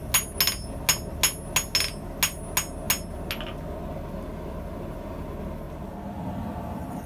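A hand hammer striking red-hot steel on the anvil while shaping a scissor finger ring: about ten quick, ringing metal-on-metal blows, roughly three a second. They stop a little over three seconds in, leaving a steady low hum.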